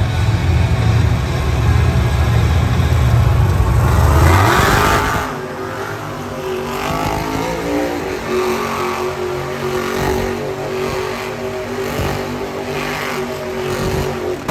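Monster truck engine running loud in an arena, a heavy low roar that revs up about four seconds in, then holds at higher revs with repeated surges.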